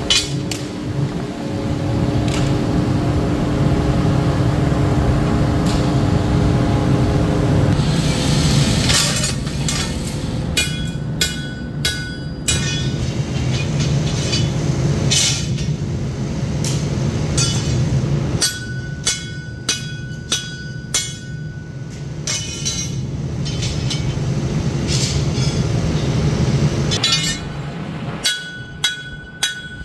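Hammer blows on steel, each with a short metallic ring, in three runs of several strikes about two a second, over a steady machine drone.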